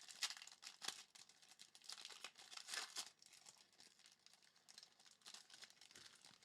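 Plastic or foil card-pack wrapper crinkling and tearing as a pack is opened and handled, an uneven crackle with many sharp clicks that stops near the end.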